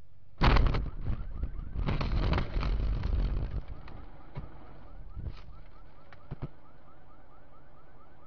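A heavy truck sideswipes the car: a sudden loud crash about half a second in, then about three seconds of crunching and scraping. A car alarm then starts, rising chirps repeating about four times a second, with a few sharp clicks.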